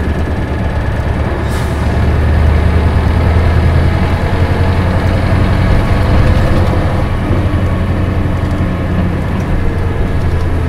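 Onboard sound of a 1996 Isuzu Cubic KC-LV280N city bus with manual transmission under way: its diesel engine drone swells from about two seconds in and eases off after about seven seconds. A brief hiss comes about one and a half seconds in.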